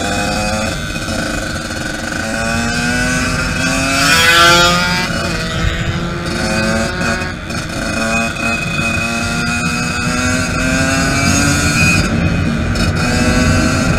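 Yamaha YZ 85 two-stroke dirt bike engine under way, its pitch rising again and again as it pulls up through the gears, with wind rushing over the helmet microphone.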